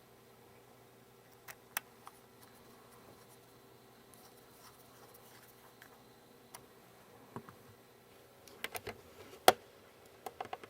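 Sparse small clicks and taps of a reassembled iPhone 3GS and small tools being handled on a work surface, over a faint steady hum. The clicks bunch up near the end, with one sharp click about nine and a half seconds in the loudest.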